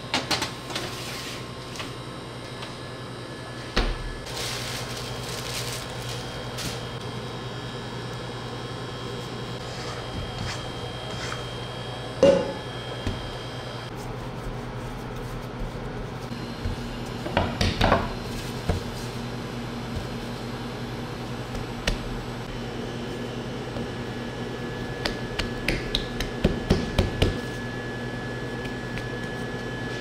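Clinks and knocks of cups, dishes and coffee-making equipment being handled, over a steady machine hum. The loudest is a single ringing clink about twelve seconds in, with a cluster of knocks a few seconds later and a quick run of light taps near the end.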